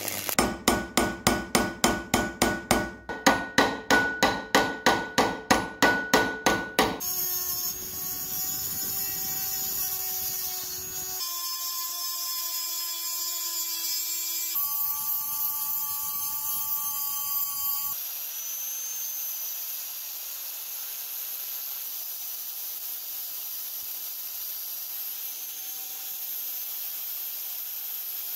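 Metal being worked on small padlock parts: a quick run of sharp hammer-like strokes, about four a second, then a small power tool such as a sanding or rotary tool running steadily, its pitch changing abruptly a few times as the scene cuts.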